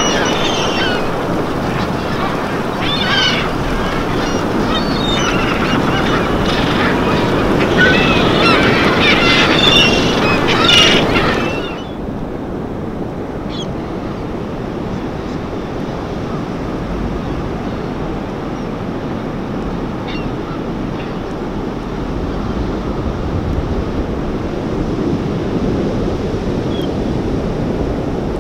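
A large flock of seagulls calling, many overlapping cries over a steady wash of water. About twelve seconds in, the sound cuts abruptly to steady surf and wind with only a few faint gull calls.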